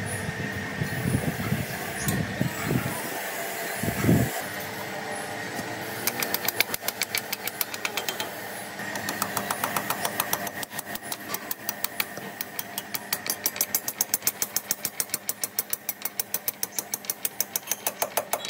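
A machine running with a regular mechanical knocking, about five beats a second, after a single heavy thump about four seconds in.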